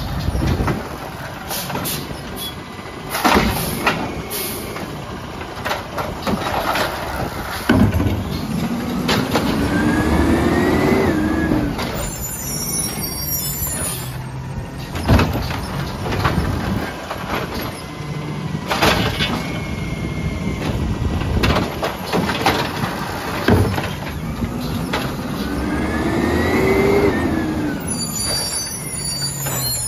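Peterbilt 320 automated side-loader garbage truck working its hydraulic arm to empty curbside carts. The engine rumbles throughout and revs up twice with a rising whine as the arm is worked. Clanks of the cart and arm and air-brake hisses come in between.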